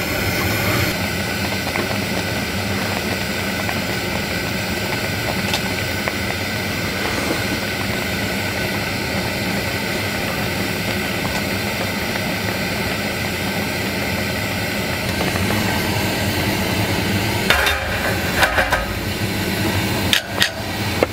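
Steady hiss of a gas camping burner's flame under a pot. Near the end come a few light clinks of metal tableware.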